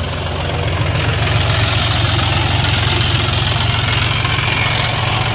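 John Deere 5105 tractor's three-cylinder diesel engine running steadily, getting a little louder over the first second or so.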